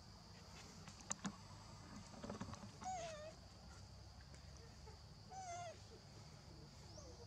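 Two short, faint squeaky calls from a macaque, about two and a half seconds apart, each held briefly and then dropping in pitch. Two sharp clicks, the loudest sounds, come about a second in.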